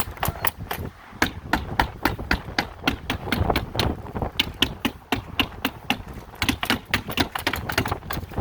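Rapid, irregular sharp strikes, several a second, of synthetic roofing underlayment being fastened down to the roof deck, over a low wind rumble.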